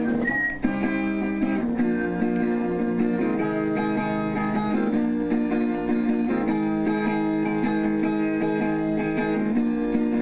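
Music with plucked, strummed guitar playing steadily, with a short high tone just after the start.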